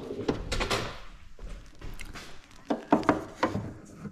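Irregular knocks and clicks of hand tools being handled, with a few sharper taps in the first second and again near the end.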